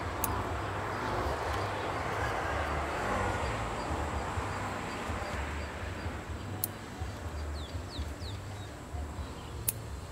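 A distant engine rumble fades away over the first half. After it come a few faint bird chirps and several sharp clicks.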